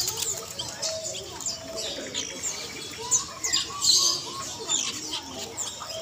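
Caged birds calling: many quick, high chirps overlapping, with a short run of lower cooing notes from zebra doves about three seconds in.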